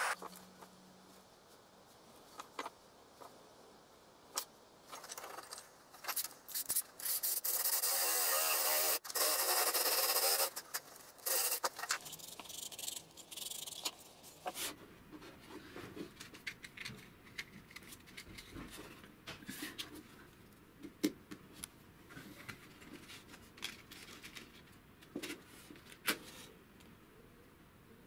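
Hands working small wooden blocks at a workbench: scraping and rubbing of wood, with scattered knocks and clicks as pieces are handled and set down. A longer stretch of steady scraping comes about seven to ten seconds in.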